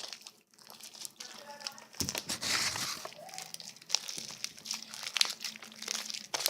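Slime being squeezed and worked by hand, giving a run of quick sticky crackles and clicks, with a denser squelching stretch about two seconds in.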